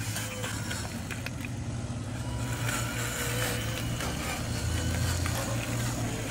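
Radio-controlled model dump truck driving over dirt: a steady low motor hum, with a few faint clicks.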